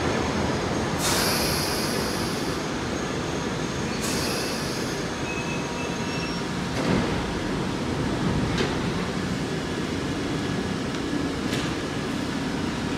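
London Underground 1973 Tube Stock train braking into a tube platform and coming to a stop: a steady rumble of wheels and motors, with two bursts of hiss about one and four seconds in, a faint brake squeal, and a sharp clunk about seven seconds in as it halts. A few lighter clicks follow while the train stands with its doors opening.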